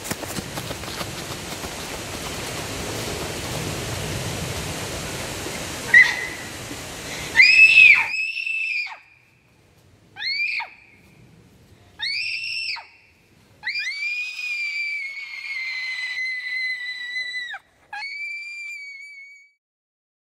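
Running feet rustling through dry fallen leaves. Then, from about seven seconds in, a girl gives several shrill screams, each rising and falling in pitch, with one long held scream in the middle and dead silence between them.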